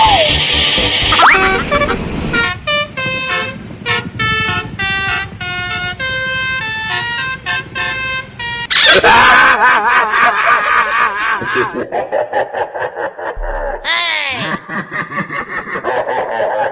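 Multi-tone 'telolet' bus air horn playing a tune of short, separate notes at changing pitches, then loud wavering, warbling horn tones with a sweep up and down near the end.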